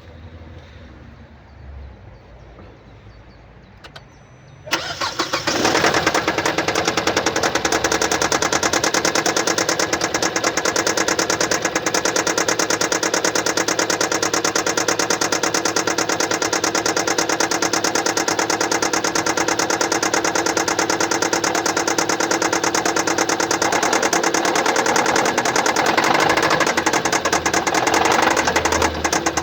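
2015 Kia Sportage's 2.0-litre G4KD four-cylinder petrol engine starting about five seconds in, then running at idle with a steady, rapid ticking clatter. The clatter is the noise of a defective fuel injector.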